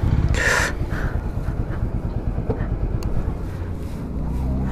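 TVS Apache single-cylinder motorcycle engine running at low idle while the bike is edged into a parking spot. A short burst of noise comes about half a second in.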